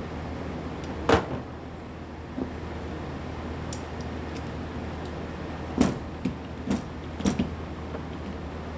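Tools and cable parts being handled on a workbench: a sharp clack about a second in, then a quick run of four clacks and knocks near the end, over a steady low hum.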